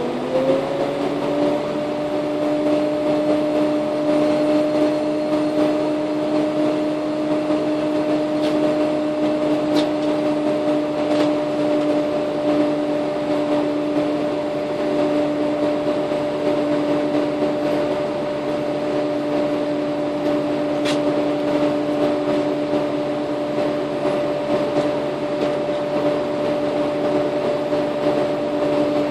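A steady mechanical whine inside a Karosa B931 city bus: two tones glide up and settle as it begins, then hold at one pitch over a low hum, with a few faint clicks.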